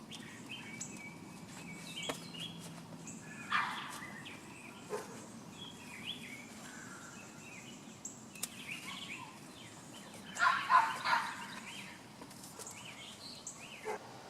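Small birds chirping in short, scattered calls over a steady background hiss, with a louder cluster of calls about three and a half seconds in and a louder burst again about ten seconds in.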